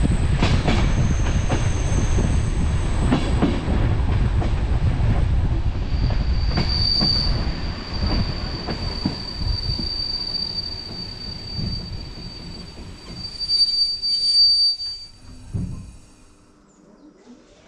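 Rumble and clatter of a passenger train's wheels running on the rails; about six seconds in a steady high-pitched wheel squeal sets in and lasts about nine seconds while the rumble fades away as the train slows, ending fairly quiet.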